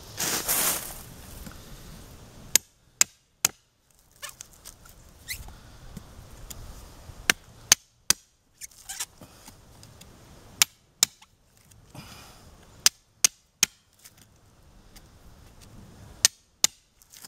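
Hammer striking a handmade knife held point-down, driving the blade into an oak branch: sharp strikes in short runs of two or three, a few seconds between runs. A brief rustle of dry leaves at the start.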